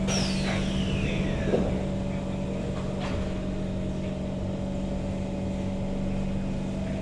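Inside a Kawasaki Heavy Industries C151 MRT train car just after the doors close: a steady electrical hum from the train's equipment, with a high whine that falls in pitch over the first two seconds.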